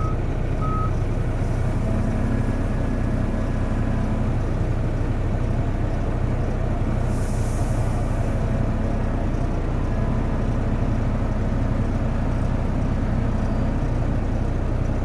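Dump truck's diesel engine idling steadily, heard from inside the cab. A short beep about half a second in, and a brief high hiss around seven seconds in.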